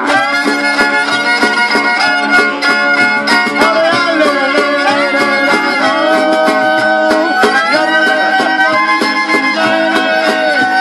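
Folk instrumental break: a fiddle plays the melody in long held notes with slides between them, over strummed acoustic guitars keeping a steady rhythm.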